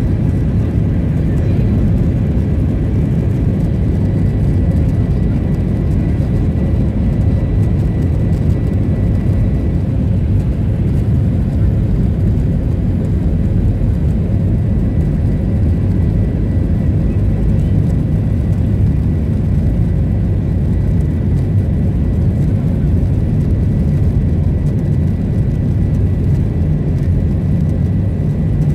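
Cabin noise of a Boeing 737-800 taxiing: the CFM56 engines run at low taxi thrust with a steady, even rumble, heard from inside the cabin. A faint, steady high whine fades out about ten seconds in.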